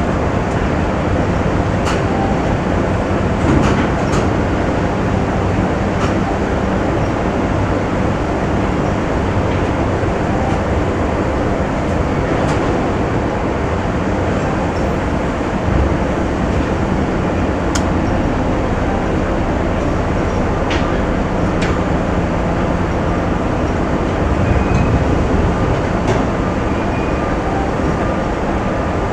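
Factory ambience: a steady, dense mechanical din of running machinery, with scattered sharp metallic clicks and knocks.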